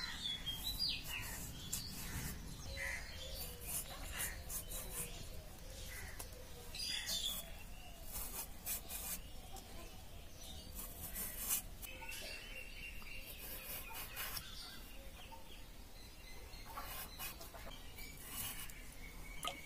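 Faint, irregular scraping as potato skin is shaved off against the edge of a boti, a curved upright cutting blade. Birds chirp behind it, briefly just after the start and again about seven seconds in.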